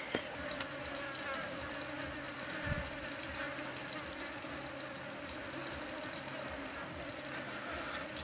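Insects buzzing steadily in the surrounding forest, a constant drone, with one brief low thump about a third of the way in.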